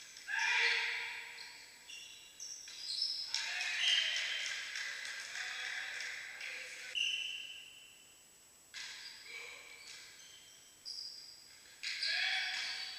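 Indoor volleyball rally: the ball is struck several times with sharp smacks, with short high squeaks and players' calls in between, all echoing in the large sports hall.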